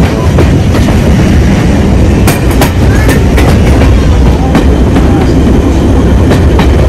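Jacobite steam train's carriage running along the line, heard from aboard at the window: a loud, steady rumble of wheels on rail, with scattered clicks and knocks over the rail joints.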